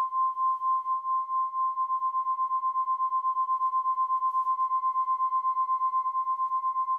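A single steady high tone, held at one pitch, pulsing in loudness about twice a second at first and then about four times a second from around two seconds in.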